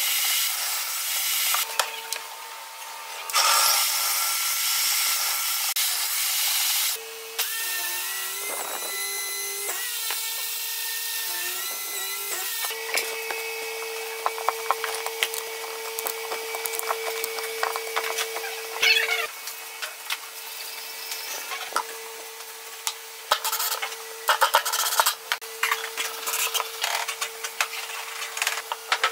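A run of woodworking shop sounds that change abruptly several times: a table saw cutting pine boards, then wood rubbing and scraping with many small clicks and knocks from boards and tools being handled.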